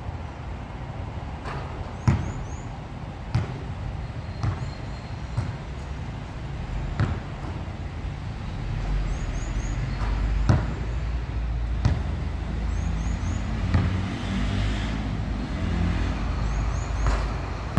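Basketball bouncing on a hard outdoor court and striking the backboard and rim: sharp single thuds every second or two. A low rumble grows in from about halfway.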